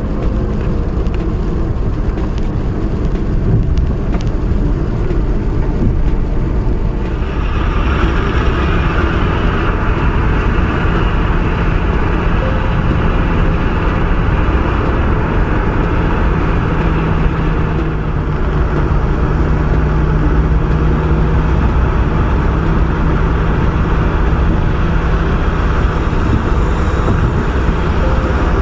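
Car driving on a rain-wet road, heard from inside the car: a steady low road and engine rumble, joined about seven seconds in by a steady higher hiss.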